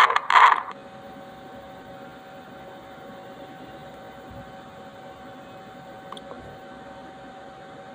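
Fetal heartbeat heard through a Doppler monitor: two last whooshing beats, about two a second, that stop within the first second. Then only a faint steady hiss with a light hum, with no heartbeat picked up.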